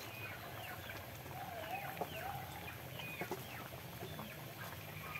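Chickens clucking and chirping, with many short falling calls and one longer wavering call about two seconds in. A few sharp clicks are mixed in.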